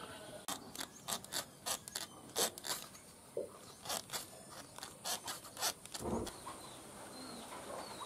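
Sickle blade scraping over the bamboo slats of a handmade fish trap: a quick, irregular run of short scraping strokes for about five seconds, then a single dull thump.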